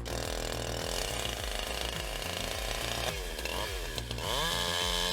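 Chainsaw running under load, cutting into a tree; about three seconds in its engine pitch dips and then climbs back up as it bogs and revs.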